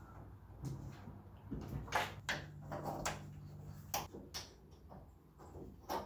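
Sharp metallic clicks and taps, about eight spread over six seconds, as hood pins are fitted through an early Ford Bronco's hood and their retaining clips handled.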